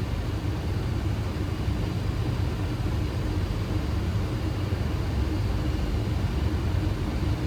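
Steady low rumble of airflow and engines on a Boeing 737 flight deck during final approach, with landing gear down and flaps at 30, and a faint steady hum beneath it.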